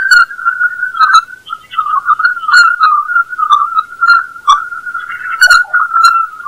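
Voyager 2 Plasma Wave Science instrument recording of Jupiter's magnetosphere, played as audio: a loud whistle-like tone that wavers around one pitch, broken by short sharp pips about once a second.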